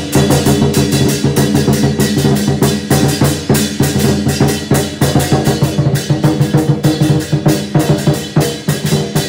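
Lion dance percussion: a large Chinese drum beaten in a fast, driving rhythm, with a steady ringing underneath.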